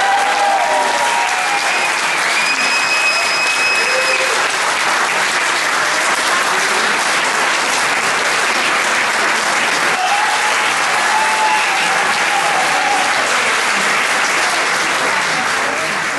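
Audience applauding steadily at the end of a tango, with a few voices calling out and a high whistle about two seconds in.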